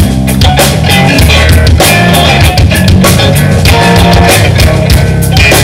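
Live blues-rock band playing an instrumental passage, with drum kit and cymbals keeping a steady beat, electric bass, and electric guitar.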